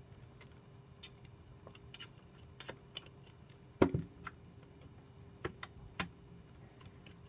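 Scattered light clicks and taps of a screwdriver and small parts being handled while a Mac Mini is reassembled, with one louder knock about four seconds in, over a faint steady hum.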